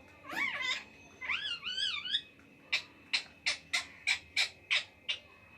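Ringneck parrot calling: two warbling calls whose pitch wavers up and down in the first two seconds, then a quick run of about ten short, sharp squawks, roughly four a second.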